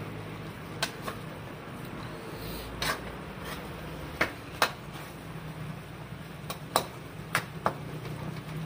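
A ladle knocking and scraping against a wok while stirring a simmering stew: sharp, irregular clinks about once a second over a steady hiss and low hum from the bubbling pot.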